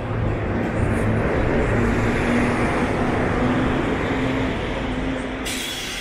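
A motor vehicle passing close by on a street, its engine and tyre noise swelling to a peak in the middle and fading away. A sudden hiss starts near the end.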